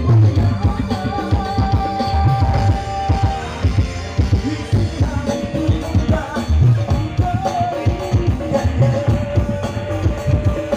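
Live dangdut band: a man singing over kendang hand drums, electric bass and keyboard, with a steady drum beat.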